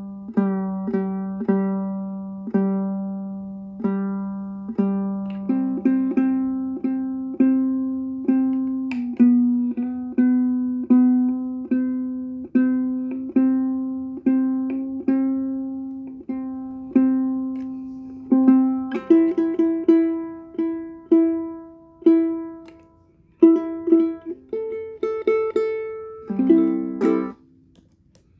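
Ukulele played solo, a slow melody of single plucked notes left to ring. The notes come quicker in the second half, and the piece ends on a short strummed chord near the end.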